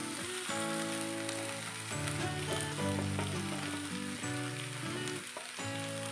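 Hot oil sizzling in a kadai, frying chopped spring onions and green chillies, with boiled potatoes just tipped in. Background music of held notes changing every second or so plays over it.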